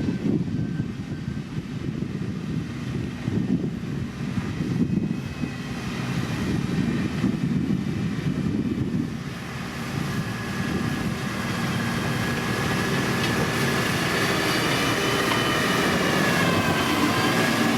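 Heavy diesel road-construction machine running with a low rumble; about halfway through, a high mechanical whine comes in over it, wavering in pitch and growing louder toward the end.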